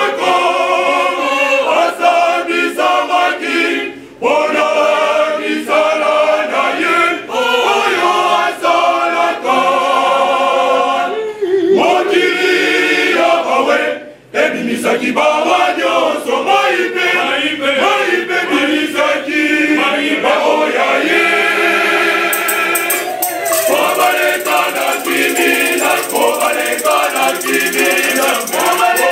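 Men's choir singing together in harmony, with two brief breaks between phrases. A hand shaker rattles along in a steady rhythm in the last several seconds.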